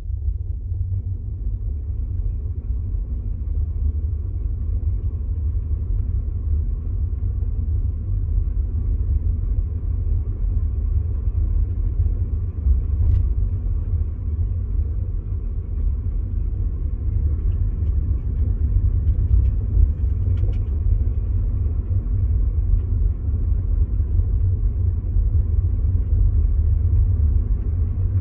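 Volkswagen e-Up electric car on the move: a steady low rumble, with a few faint clicks around halfway, the rear-axle noise the owner finds annoying.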